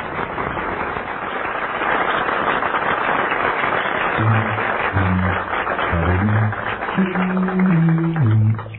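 Studio audience applauding. From about four seconds in, an a cappella group's bass voice starts singing short, low, stepping notes under the applause.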